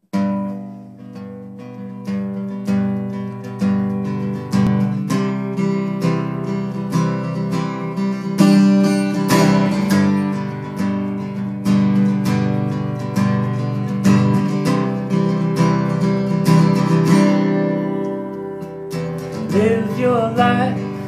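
Solo acoustic guitar playing a song's intro: chords strummed and picked in a steady rhythm. A man's singing voice comes in near the end.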